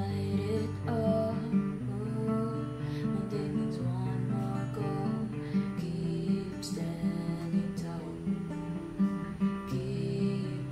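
Steel-string acoustic guitar strummed, its chords ringing and changing every couple of seconds.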